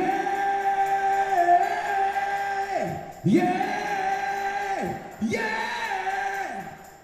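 Singing voice holding three long notes, each scooping up into the note and sliding down off it, with short breaks between and almost no band behind it.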